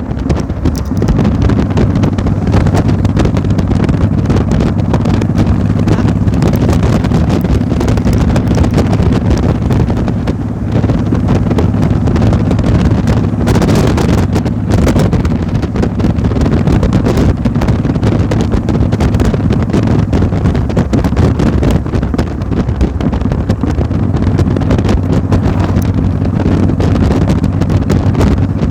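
An engine running steadily, with wind buffeting the microphone.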